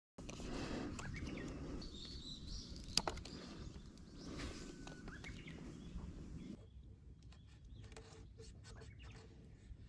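Faint outdoor ambience with small birds chirping now and then, and one sharp click about three seconds in.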